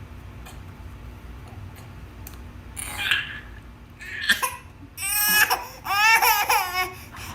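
Baby crying: after a few quiet seconds, short sobs and then two long, high-pitched wails in the second half.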